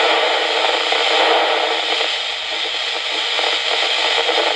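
Steady FM radio hiss from a Yaesu FT-817 receiver on 55 MHz, picking up a weak, noisy signal from a distant walkie-talkie near the edge of its range.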